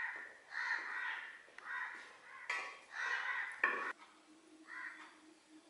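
Crows cawing repeatedly, about six short harsh calls.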